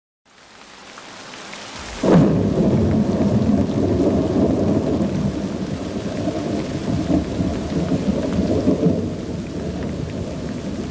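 Thunderstorm: rain hiss fading in, then a sharp thunderclap about two seconds in, followed by a long rolling rumble of thunder that slowly eases.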